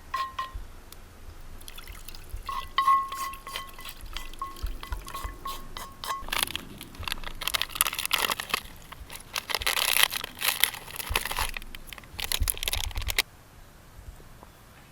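A few light, ringing clinks, then liquid pouring in uneven gushes for about seven seconds, which stops abruptly.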